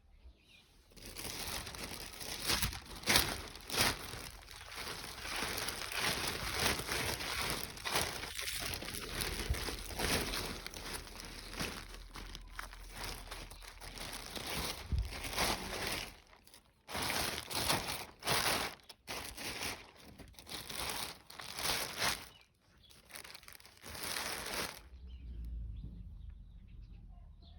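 Dry crinkling and rustling in repeated bursts, broken by a few short pauses, as something crisp is handled and crumpled.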